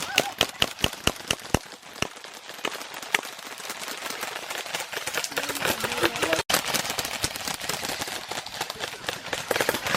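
Airsoft guns firing rapidly from several shooters at once: a dense clatter of sharp shots and cracks, with a brief break about two-thirds of the way through.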